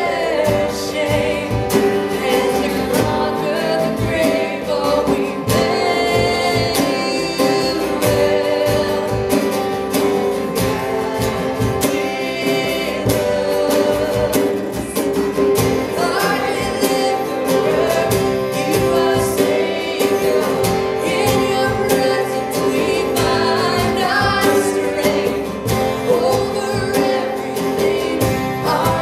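A woman singing a contemporary worship song live into a microphone, over instrumental accompaniment. Her singing breaks briefly around the middle while the accompaniment carries on.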